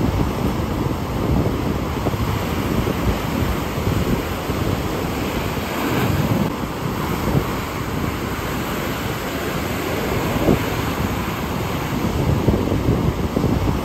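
Ocean surf washing over a rocky shoreline, mixed with wind buffeting the microphone in a heavy low rumble.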